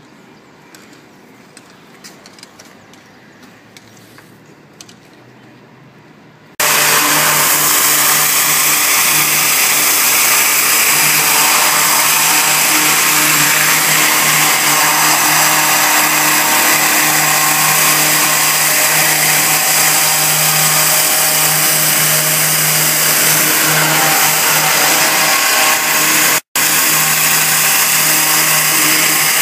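High-pressure water jet at about 15,000 psi from a hand-held dump gun with a rotating nozzle, blasting a heat exchanger tube bundle. After a few quiet seconds with faint clicks it starts suddenly as a loud, steady hiss with a low hum underneath, and cuts out for an instant near the end.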